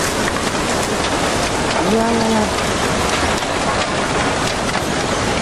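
Tsunami floodwater rushing through the town, a loud steady hiss with faint crackles, and one short call of a person's voice about two seconds in.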